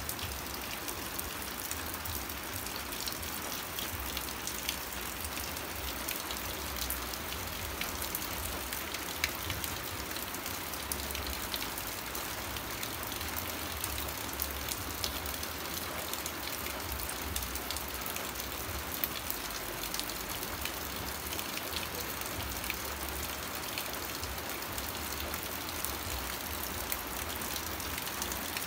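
Rain falling steadily: an even hiss dotted with many small, sharp drop ticks, over a low fluttering rumble.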